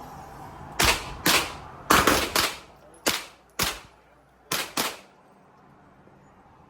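Gunshots at an indoor range: about eight sharp shots in quick, irregular succession, some in pairs, each trailing off in a short echo, stopping about five seconds in.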